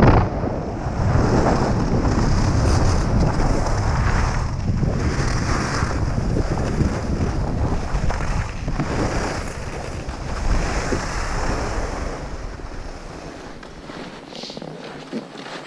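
Wind buffeting the microphone of a body-worn camera during a fast downhill ski run, with skis hissing over groomed snow; the rumble dies down over the last few seconds as the skier slows.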